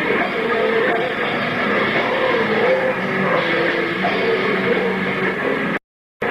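Metal band playing live: distorted electric guitars over a drum kit, recorded from the audience. Near the end the sound cuts out completely for a split second, then comes back.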